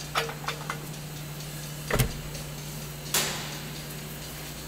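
A few light clicks, then the Volvo XC90's front door shutting with one solid thump about two seconds in. A short hissing rush follows about a second later and fades away.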